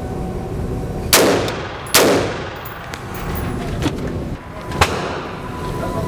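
AR-15 rifle firing: two loud shots about a second apart, each with a ringing echo, followed by two fainter sharp cracks later on.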